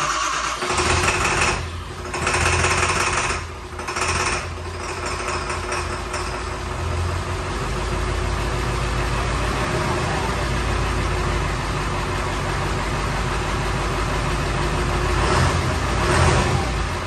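Ford Super Duty pickup engine catching about a second in after being started, then idling steadily with a low rumble. The engine comes up slightly near the end.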